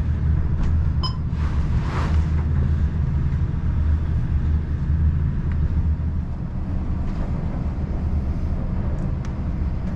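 Nordhavn 55 trawler's diesel propulsion droning steadily under way in rough 6 to 8 foot seas, with a brief rush of water noise about two seconds in.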